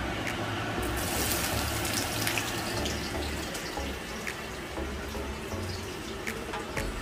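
Water running steadily from a kitchen tap into a sink, a continuous splashing hiss with a few faint clicks.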